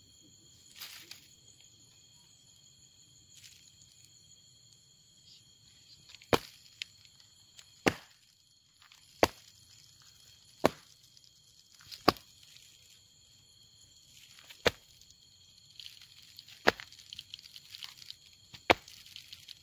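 Sharp single knocks, roughly one every second and a half, from the ground being struck to disturb termite soldiers, over a steady high-pitched chorus of night insects. Near the end a faint crackling sets in, the rain-like sound of termite soldiers knocking their heads against the leaf litter as an alarm.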